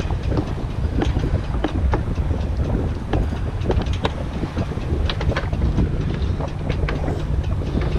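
Wind buffeting the microphone on a sailing yacht's cabin top, with a steady rumble and many irregular clicks and knocks from a crewman working the coachroof winch and its sheet.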